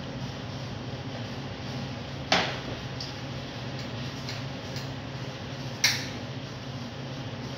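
Two sharp knocks, about three and a half seconds apart, over a steady low hum.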